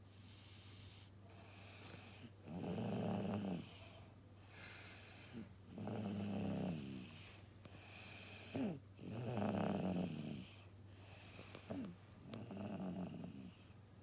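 A child snoring in slow, regular breaths: four loud snores about three seconds apart, each lasting about a second, with a short sharp snort just before the last three.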